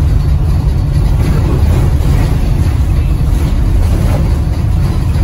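Cabin noise inside a Gillig 41-ft BRTPlus electric trolleybus running at speed: a loud, steady low rumble of tyres on the road and the moving body.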